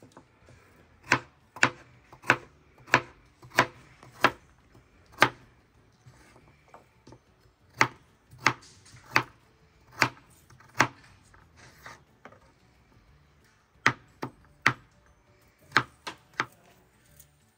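Knife chopping carrots on a cutting board: single sharp knocks, about one every two-thirds of a second, in three runs with short pauses between them.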